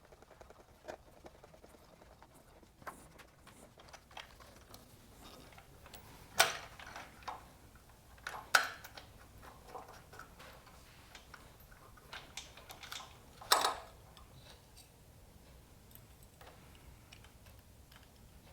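Scattered small metallic clicks and clinks of tools and parts as the caps are taken off a pair of pre-monoblock motorcycle carburetors, with three sharper, louder clinks spread through.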